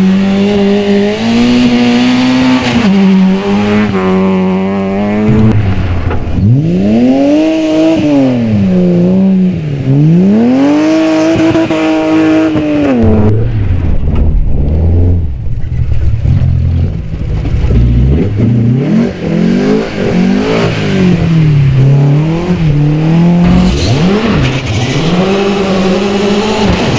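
A succession of rally cars driven hard on a muddy gravel stage: a Nissan Micra, then an Opel Manta, then a Škoda Fabia R5. Their engines rev up and down in repeated sweeping rises and falls as the drivers work the throttle and gears through the slippery corner.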